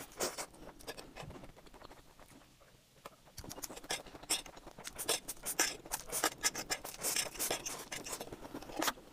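Close-miked slurping and chewing of sauced instant noodles: quick wet smacks and sucking clicks. They thin out for a moment about two seconds in, then come thick and fast through the second half.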